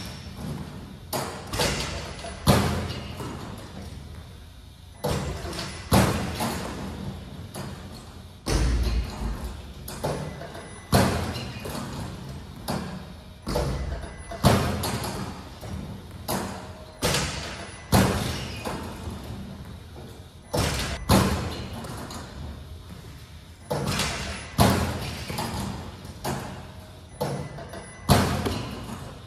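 Basketballs repeatedly striking the rim, backboard and hardwood floor in a large gym: a string of sharp thuds, roughly one a second, each ringing out in the hall's echo.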